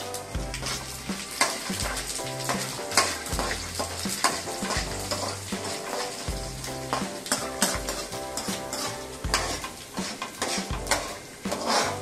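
Chana dal, urad dal, mustard seeds and cumin sizzling in hot oil in an aluminium kadai, with a metal ladle scraping the pan as they are stirred and roasted until golden. Background music with a steady bass line plays throughout.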